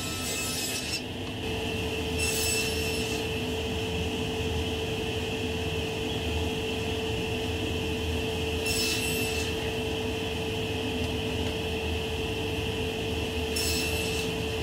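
Table saw running steadily with a constant hum, broken by four short hissing cuts through thin hardwood strips.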